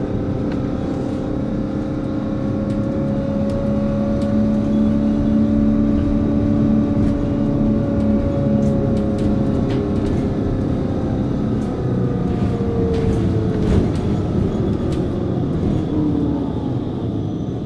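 Hess Swisstrolley 3 trolleybus, heard from inside the passenger compartment: a steady hum and whine from its electrical and auxiliary equipment over a low rumble. The main tone drifts slightly up and then falls in pitch a few seconds before the end.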